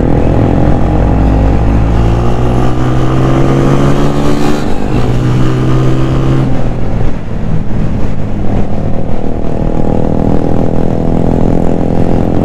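Honda CG 125's single-cylinder four-stroke engine running under way, its pitch rising steadily as the motorcycle accelerates for about six seconds, then dropping back and running on at a steady pitch.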